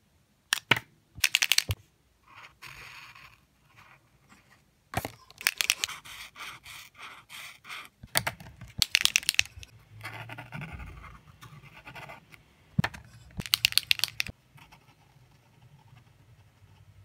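Posca paint marker being shaken, the mixing ball inside rattling in several short bursts. Between the bursts the marker's felt tip scratches across the paper as areas are coloured in.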